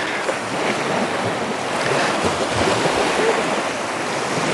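Sea waves washing onto the shore, a steady rushing noise, with wind buffeting the microphone.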